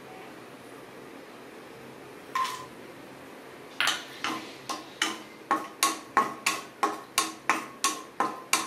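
Wooden spatula knocking and scraping against a non-stick kadai while stirring cashew nuts roasting in ghee, about three sharp knocks a second with a short metallic ring, starting about four seconds in. A single clatter about two seconds in as the cashews are tipped into the pan.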